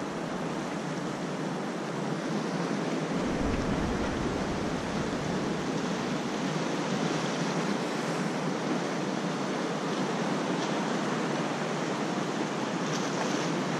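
Small waves washing against the rocks of a jetty, a steady wash of water, with wind buffeting the microphone from about three seconds in until about eight seconds in.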